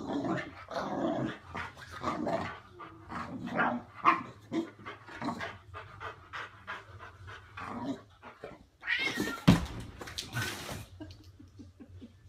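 A dog and a cat vocalizing at each other in a run of short calls, with a louder, harsher outburst about nine seconds in.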